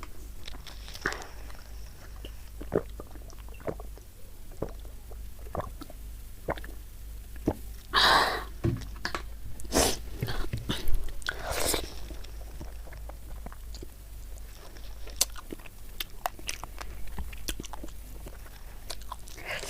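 Close-up chewing and biting of a mouthful of rice and chicken curry: wet mouth clicks and smacks all through, with a few louder, crunchier bites around the middle.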